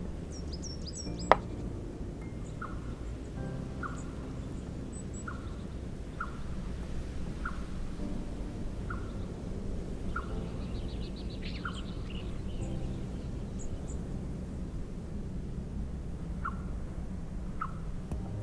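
Soft background music, with a bird chirping about once a second and a short fast trill near the middle. A single sharp clink about a second in, from the ceramic pot lid being handled.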